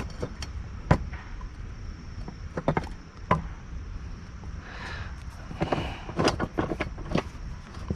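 Scattered sharp knocks and clicks from a workpiece and cutting tool being handled and repositioned, in three small clusters about a second in, around three seconds in, and in the last third.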